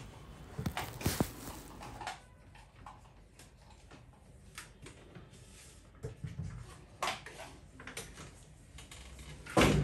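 Scattered light clicks and knocks of objects being handled, with a louder knock near the end.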